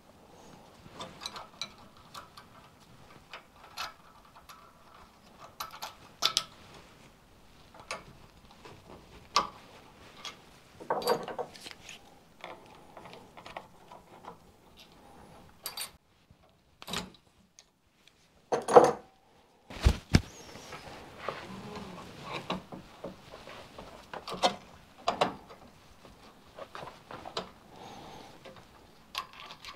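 Irregular metal clicks, clinks and knocks of steel spanners on the lock nut and fork cap of a motorcycle upside-down fork cartridge held compressed in a homemade spring compressor. A louder clank and a dull thump come a little past halfway.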